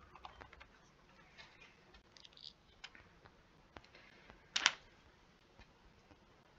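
Faint, scattered clicks of a computer keyboard and mouse, with one short, louder click-like noise about four and a half seconds in.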